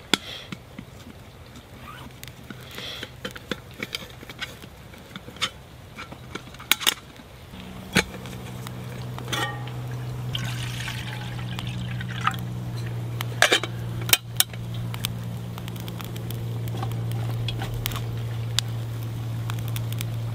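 Water poured into a metal camp kettle, with scattered sharp clicks and clinks of the kettle and its lid. A low steady hum comes in about a third of the way through and grows louder.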